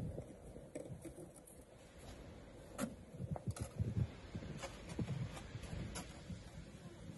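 Footsteps in snow as a person walks close past, about two steps a second, with a few light clicks and knocks, over a low rumble of wind on the microphone.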